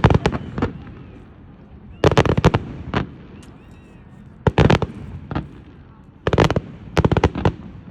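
Fireworks going off in short clusters of rapid, sharp cracks every second or two, like firecrackers popping.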